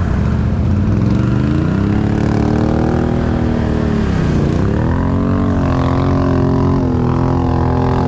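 Can-Am off-road vehicle engine revving hard while driving in a mudhole. The pitch climbs about two seconds in, dips sharply near the middle, then climbs back and holds high until it drops off near the end.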